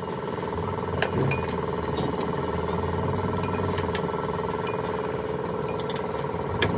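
A steady mechanical hum from a running machine, with scattered sharp metallic clinks and taps from work on sheet-steel parts.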